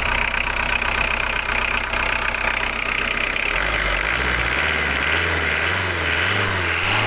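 Diesel car engine running at idle, loud and rough, with a low hum that starts wavering up and down about once a second partway through. The mechanic puts the harsh running down to too much injection timing advance.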